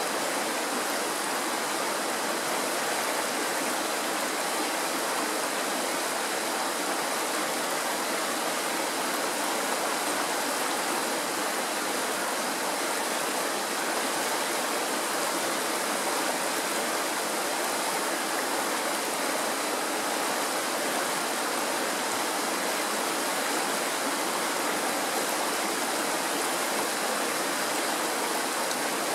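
Shallow mountain stream rushing and splashing over stones in a steady, unbroken hiss.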